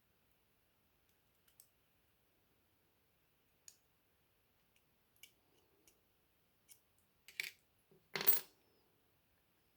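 Sparse light clicks and taps of small tools and parts on the phone's internals during disassembly, with two louder clatters near the end.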